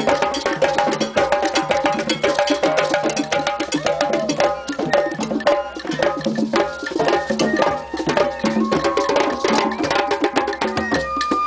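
A circle of hand drums, djembes and congas, playing a dense, driving rhythm together. A small flute plays held notes over the drumming in the latter part.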